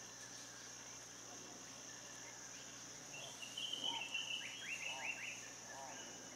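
Steady high-pitched insect chorus, typical of crickets. From about three seconds in it is joined by a string of chirping calls: high notes with quick falling sweeps, then a series of short arched notes.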